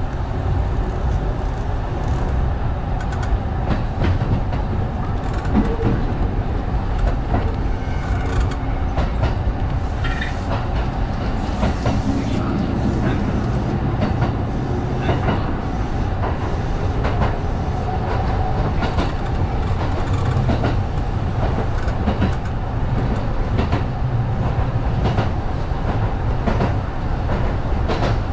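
Kintetsu 1010 series electric train running along the line, a steady rumble with scattered sharp clicks from the wheels on the track, heard from inside the front car.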